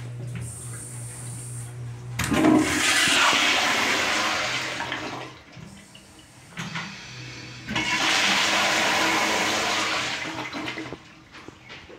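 Wall-hung tankless commercial toilet flushing twice: a loud rush of water starting about two seconds in and lasting about three seconds, then a second flush of the same length about five seconds later.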